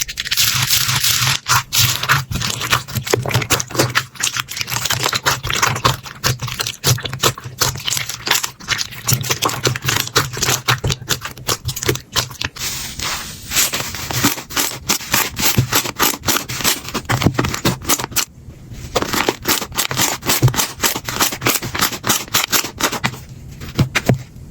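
Slime being squeezed and poked by hand, giving a dense run of rapid clicking and crackling. It breaks off briefly twice, near the three-quarter mark and near the end.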